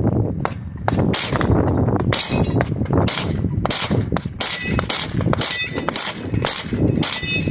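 Rapid string of Sig Sauer P320 pistol shots, about two a second. From about two seconds in, many shots are followed by the ringing clang of struck steel plates.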